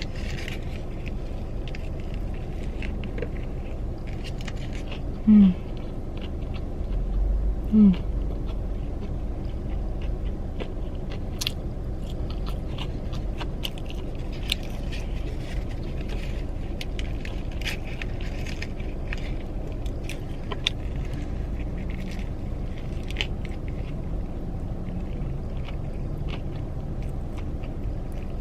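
Biting and chewing a crispy fried chicken sandwich, with scattered crunches and paper wrapper rustles, over a steady low hum. Two short, falling-pitch sounds about five and eight seconds in are the loudest moments.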